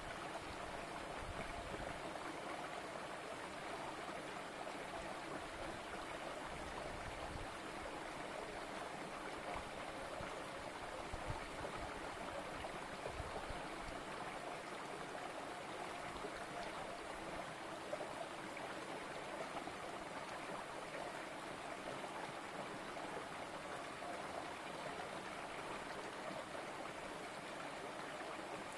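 Small rocky stream running steadily over stones, a continuous burbling trickle, with a few faint low thumps here and there.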